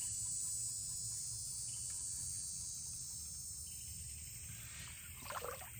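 Steady high-pitched drone of insects, several thin tones held together, over a low even rumble.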